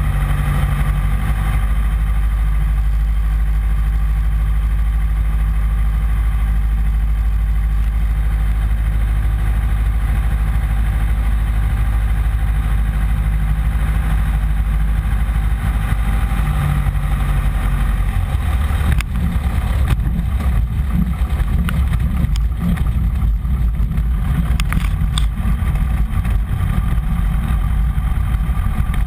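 Piper PA-15 Vagabond's small four-cylinder air-cooled engine and propeller running steadily at low power, heard from inside the cockpit. About two-thirds of the way through, the sound turns rougher, with scattered clicks and knocks.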